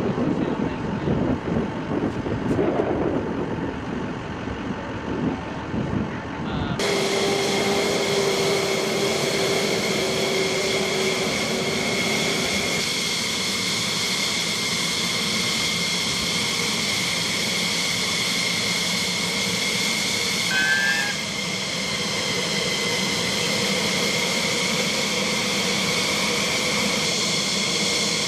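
Jet engine noise: a fluctuating low rumble, then an abrupt change about seven seconds in to a steady high whine made of several held tones.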